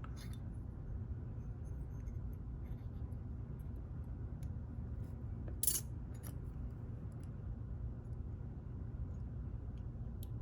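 Small metal clicks and clinks of pins and springs being taken out of a disassembled pin tumbler lock, with one sharper click a little past halfway, over a steady low hum.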